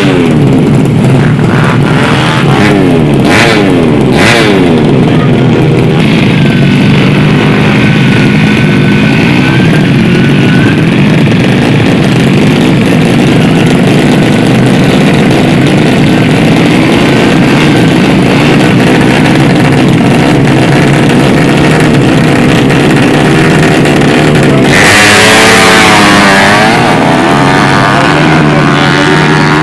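Tuned 130cc underbone drag-racing motorcycle engine revved repeatedly at the start line, its pitch rising and falling with the throttle. About 25 seconds in it launches at full throttle, louder, with the pitch sweeping up and down through the gears.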